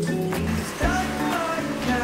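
Background music: a song with a sung melody over a steady bass line and drum hits.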